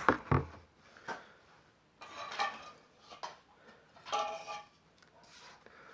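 Small hard objects being handled on a work surface: a few sharp clicks and light clinks, with two short scraping rustles about two seconds and four seconds in.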